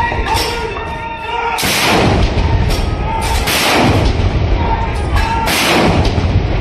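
105 mm Light Field Guns firing a ceremonial salute: heavy booms about every two seconds, three strong ones after a weaker one near the start, each trailing off in a long rumble.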